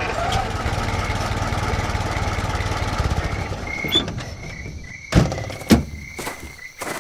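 Car engine sound effect running steadily, then fading, followed by two heavy crash impacts about five seconds in and a few lighter knocks: the hearse hitting an irrigation pipe and stopping. Crickets chirp steadily once the engine dies down.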